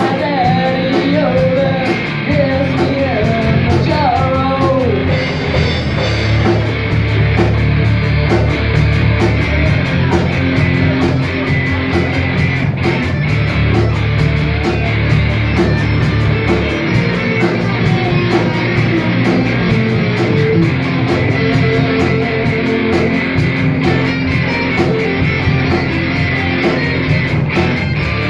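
Live rock band playing loud, with distorted electric guitars, bass and a drum kit keeping a steady beat; a woman sings for the first few seconds, then the band plays on without vocals.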